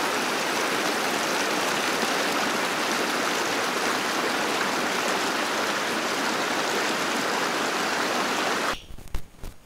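Lake overflow stream cascading down rock slabs: a steady rushing of water. It cuts off abruptly near the end, leaving a few faint clicks.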